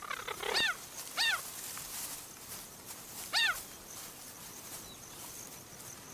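Cheetah chirping: three short, high-pitched calls that each rise and fall, the first two close together and the third about two seconds later.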